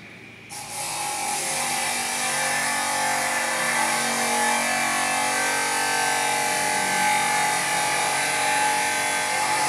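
A loud, steady mechanical drone of several held tones over a hiss, starting abruptly about half a second in and cutting off suddenly at the end.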